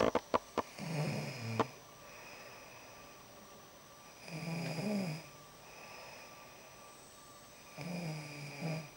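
A woman snoring in her sleep: three snores about three and a half seconds apart, each about a second long with a low buzz, and softer breath between them. A few sharp clicks in the first half second.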